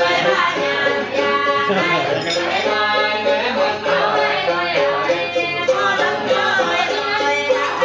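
Live folk song: voices singing in held notes, accompanied by a plucked string lute.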